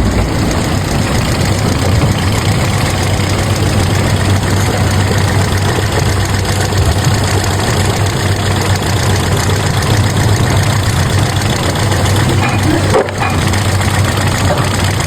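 Car engine idling with a misfire, running steadily with a brief dip in level about thirteen seconds in.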